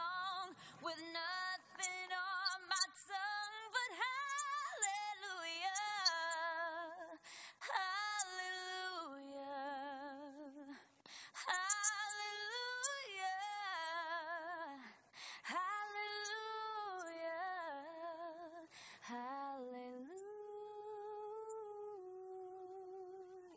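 A woman singing solo and unaccompanied, a slow melody of long held notes with a wide vibrato, in phrases separated by short breaths.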